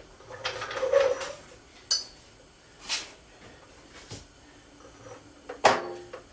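Metal clanks and clinks of tools or equipment being handled: a short clatter early on, then a few separate sharp knocks, the loudest near the end.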